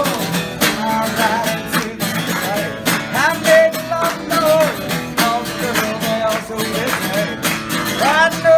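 Acoustic guitar strummed steadily in a live solo country song, with a man's singing voice coming in at moments.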